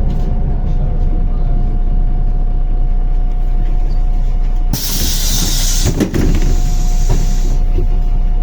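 MAZ-105 city bus running steadily, its engine rumbling with a constant whine. About five seconds in, a loud hiss of compressed air starts and lasts nearly three seconds, with a couple of knocks in the middle of it.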